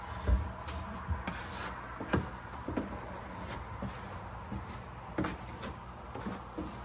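Irregular light knocks and rubbing from materials being handled and fitted by hand, two of the knocks sharper than the rest, over a steady low hum.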